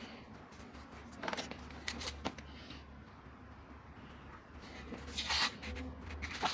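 Handling noises: a few sharp knocks and clicks, then a scraping swish about five seconds in, over a steady low hum.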